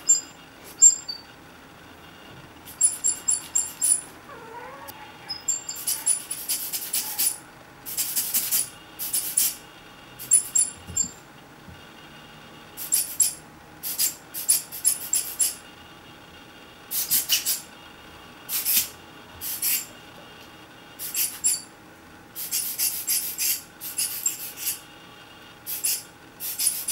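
A rubber-bulb camera air blower being squeezed again and again, each squeeze a short hiss of air. The puffs come in quick runs of two to five, with short pauses between.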